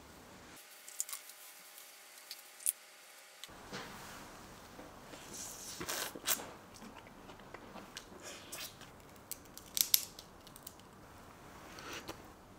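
Faint, scattered small clicks, snips and crackles of close handling, with a couple of sharper clicks about three seconds in and again near the ten-second mark.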